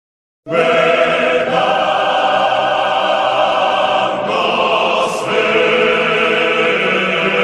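A choir singing long held chords, like a heavenly choir sound effect. It starts about half a second in and shifts chord a couple of times.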